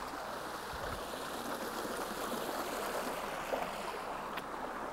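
A creek running over rocks: a steady rush of flowing water, with a single faint tap about four seconds in.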